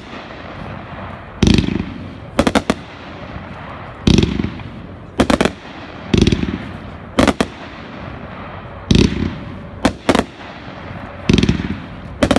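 Consumer 500-gram fireworks cake firing shot after shot, about every two and a half seconds: each shot is a low thump as it launches, then about a second later one to three sharp bangs as it breaks overhead.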